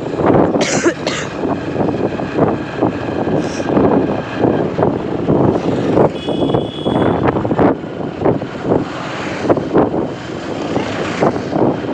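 Passenger train running: steady rumble with repeated rattles and knocks, and a brief high tone about six seconds in.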